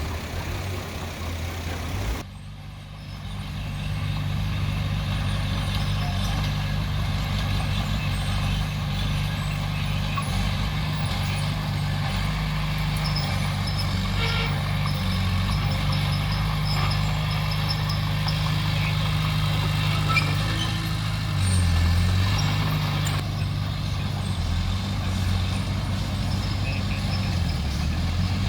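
Heavy diesel machinery engine running steadily, its pitch shifting a little. It drops away briefly about two seconds in and comes back up, then goes deeper and louder for a moment around three quarters of the way through.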